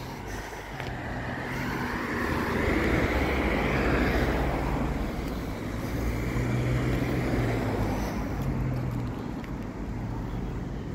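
A road vehicle driving past close by: engine hum and tyre noise swell to a peak about four seconds in, stay loud for a while, then ease off near the end.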